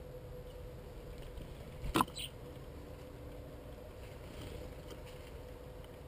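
Male blackbird pecking at sunflower hearts on a stone bird table: one sharp tap of the beak on the stone about two seconds in, over a steady low background rumble and faint hum.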